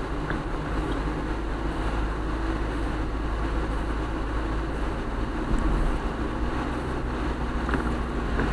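Steady road noise of a car driving on wet pavement, heard from inside the cabin: a low rumble with the hiss of tyres on the wet road. A couple of faint ticks, one shortly after the start and one near the end.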